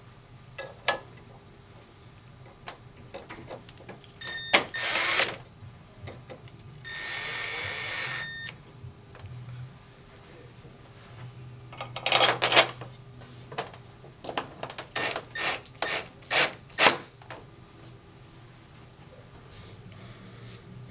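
Metal bracket parts clicking and clattering as they are handled and fitted, with a power screwdriver running for about a second and a half near the middle. A run of about ten sharp metallic clicks and knocks follows later.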